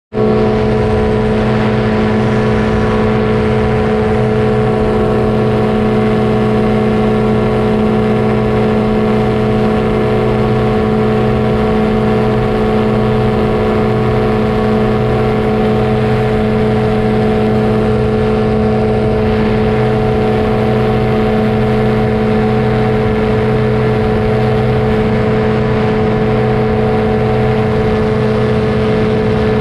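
Powered parachute's engine and propeller running steadily in flight: a loud, even drone that holds one pitch.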